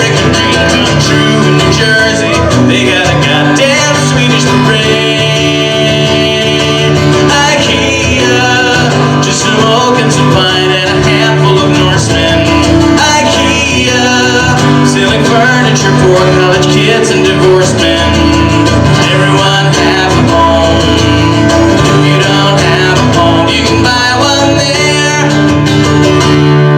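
Live music: a guitar-led instrumental passage with a steady bass line, closing out a song.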